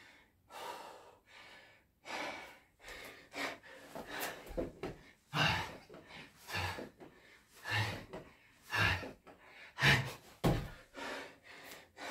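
A man breathing hard from the exertion of burpees with push-ups, with sharp gasping breaths roughly once a second.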